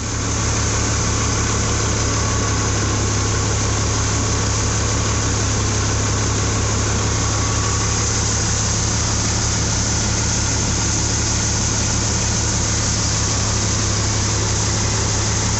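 Sonalika tractor's diesel engine running steadily at working speed, powering a Kamdhenu thresher, heard close to the engine as an even, fast throb under a constant rushing hiss.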